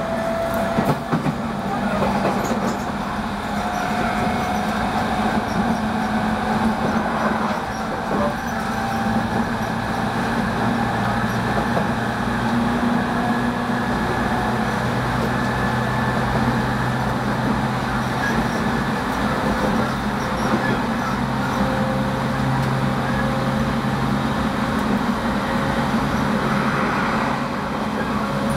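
JR East 209 series (500-subseries) electric train's GTO-thyristor VVVF inverter and traction motors under way, heard from inside a motor car: several steady whining tones, the highest rising slowly, over the rumble of wheels on rail.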